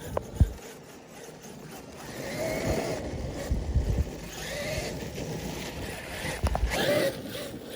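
Traxxas Maxx RC monster truck's electric motor whining up and down in pitch in several throttle bursts as it is driven, with a few low thumps from the truck or wind on the microphone.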